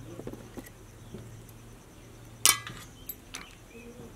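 A piece of shelled snail dropped into a stainless-steel bowl: one sharp clink with a brief metallic ring about two and a half seconds in, among a few fainter clicks.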